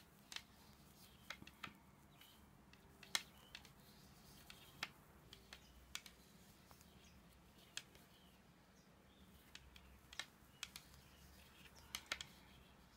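Faint, irregular clicks of wooden knitting needles tapping together as stitches are worked off during a bind-off, about a dozen scattered through, over near-silent room tone.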